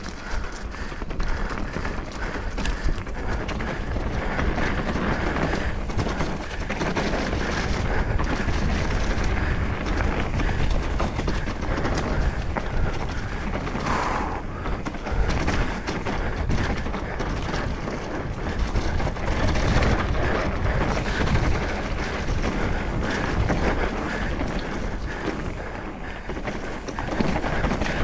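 Mountain bike rolling over a rocky trail: knobby tyres crunching over stones, chain and frame rattling, with wind rushing over the microphone.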